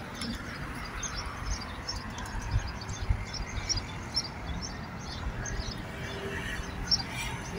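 Outdoor ambience: small birds chirping in many short, high calls over a steady low rumble of street traffic and wind.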